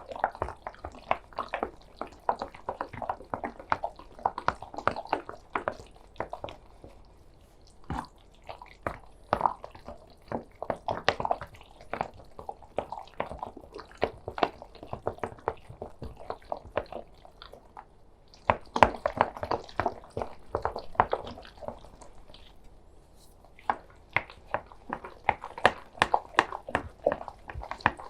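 Wet, sticky squelching and clicking of a food mixture being mixed or kneaded, in bursts with short pauses.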